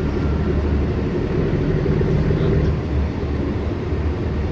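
Steady low rumble of a boat's engine running, with an even drone and no change in pace.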